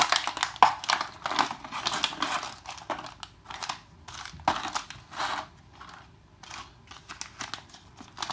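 Packaging crinkling and rustling as a box is opened and its contents handled: irregular crackles, busiest in the first few seconds, then sparser.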